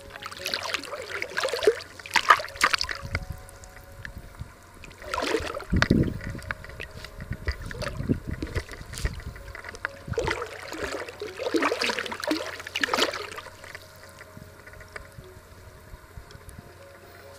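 Shallow seawater sloshing and splashing in three bursts, as someone wades through it, growing quieter near the end.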